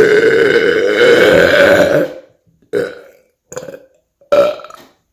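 A man's long, loud burp lasting about two seconds, followed by three shorter, quieter burps.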